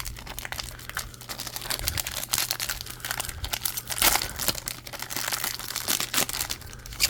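Crinkling and crackling of a foil trading-card pack wrapper being handled and torn, in irregular bursts with louder clusters about two, four and six seconds in.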